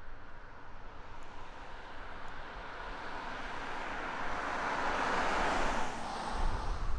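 A road vehicle passing by. Its tyre and engine noise builds for about five seconds, peaks, then falls away quickly with a brief low rumble at the end.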